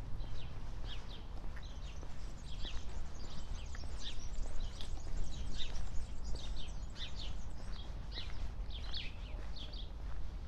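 Footsteps crunching at a steady walking pace on a sandy gravel path, about two steps a second, over a low rumble of wind on the microphone.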